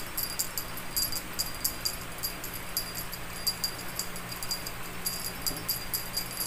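Small jingle bell jingling in irregular shakes, a few times a second, as a toy dangling on a string swings.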